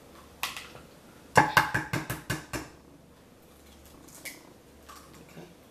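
A hen's egg being cracked against the rim of a glass baking dish: one sharp tap, then a quick run of about seven sharp taps about a second and a half in, and a couple of faint clicks near the end as the shell is pulled apart.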